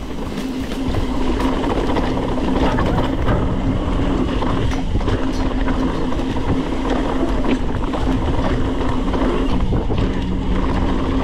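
Mountain bike rolling fast along a dirt trail: steady rumble of tyres and wind on the microphone, with a constant buzzing hum and a few short knocks over the trail.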